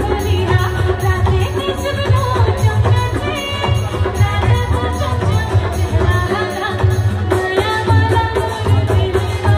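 Live band playing a Chhattisgarhi folk song: keyboards and drums over a heavy, steady bass beat, with a woman singing into a microphone.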